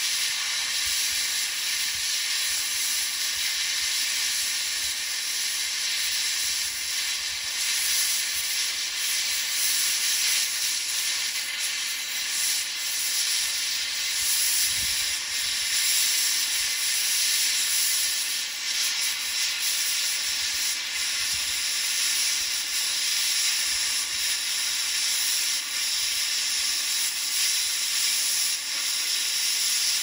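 Oxy-acetylene torch with a scarfing tip giving a steady, unbroken hiss as its oxygen jet gouges weld off steel, blowing out the molten metal to separate the weld from the base plate.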